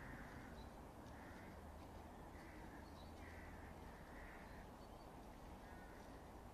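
Faint crow caws in a series, about one a second, over a steady low outdoor rumble.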